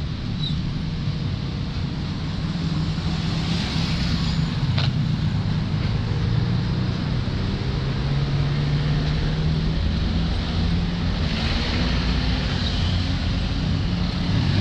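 City street traffic: a steady hum of car engines and tyres on the road, with a sharp click about five seconds in.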